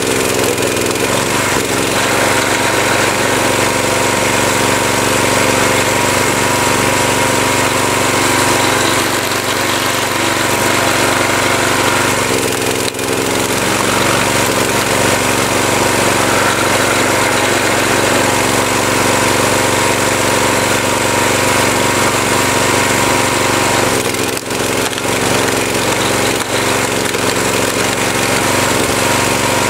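Tractor engine running steadily to power a hydraulic wood splitter, with a couple of brief dips in the noise.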